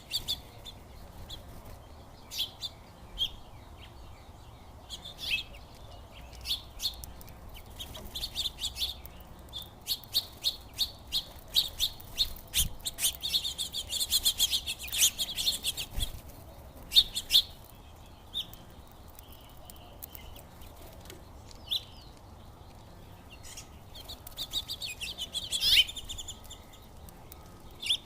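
Small songbirds chirping in short, quick calls, thickening into a rapid chatter about halfway through and again near the end.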